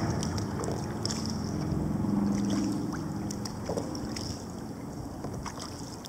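Sea kayak moving over choppy open water: water splashing and lapping against the hull, with wind buffeting the microphone. A low hum swells briefly about two seconds in.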